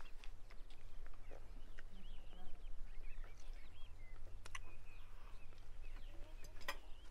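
Small birds chirping on and off over a low steady hum, with a few sharp clicks, the loudest near the end.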